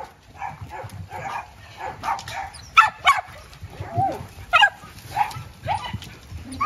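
Dogs barking in a scatter of short, sharp barks, with the loudest pair of barks about three seconds in.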